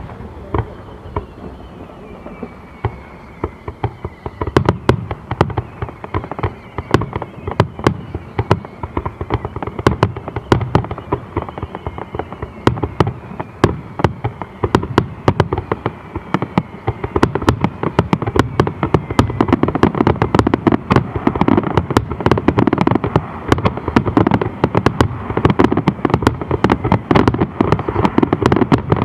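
Aerial fireworks shells bursting at a distance, a rapid string of booms and cracks that grows denser and louder toward the end, like a barrage. Faint falling whistles can be heard through roughly the first half.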